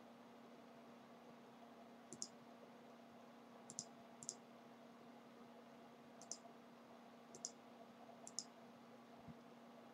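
Computer mouse button clicked six times, short sharp clicks spread a second or so apart, over a faint steady hum.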